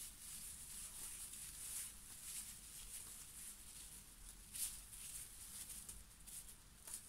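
Faint, irregular swishing strokes of a soft brush sweeping over gold leaf laid on a canvas, brushing off loose flakes. The loudest stroke comes about four and a half seconds in.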